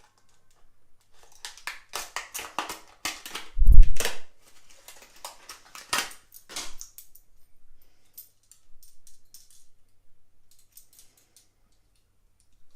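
Padlock retail packaging being handled and opened: plastic and card crackling and rustling in dense bursts, with one heavy knock just before four seconds in, then scattered small clicks.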